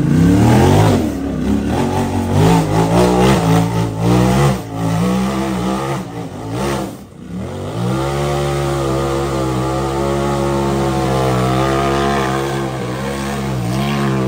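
Loud side-by-side UTV engine revving, the throttle worked up and down in quick bursts for several seconds, then, after a short drop about seven seconds in, held at steady high revs.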